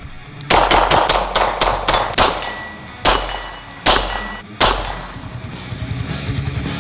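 A rifle fired in quick succession, about four shots a second for nearly two seconds, then three single shots about a second apart, with metallic clanging. Electric guitar rock music comes up near the end.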